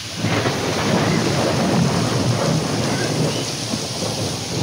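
Heavy rain pouring, joined about a quarter-second in by a low rolling rumble of thunder that eases slightly near the end.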